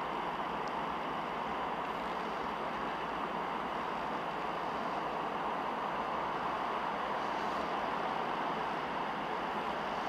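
New Holland TM135 tractor engine running steadily under load as it pulls a power harrow and seed drill across ploughed ground, an even drone with no changes in pace.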